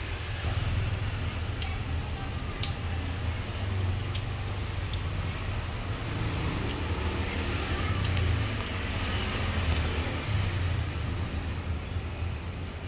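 A steady low rumble with a few light clicks scattered through it.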